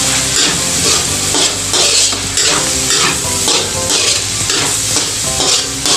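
Spatula scraping and stirring ground pork around a metal wok, the meat sizzling as it fries; the scraping strokes come about twice a second.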